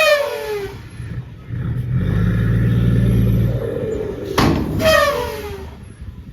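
Heavy earthmoving machinery at work: a diesel engine rises in revs for a couple of seconds. Two loud metallic bangs come at the start and about four and a half seconds in, each followed by a falling ring.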